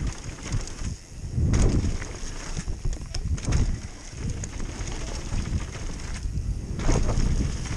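Downhill mountain bike ridden fast down a leaf-covered dirt trail: wind buffeting the microphone over the rumble of the tyres and a run of clicks and clatters from the bike, with heavier rushes about one and a half seconds in and again near the end.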